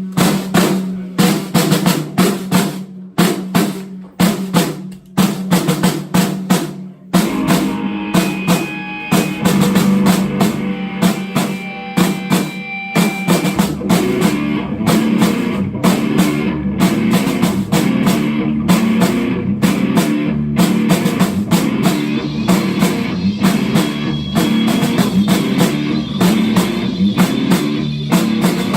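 Live rock band: a drum kit plays alone for about seven seconds, with kick, snare and rimshots, then the rest of the band comes in and plays on loudly with guitars.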